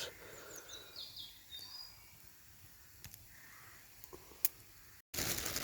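Quiet woodland background with a few faint, high bird chirps early on and a couple of soft clicks later.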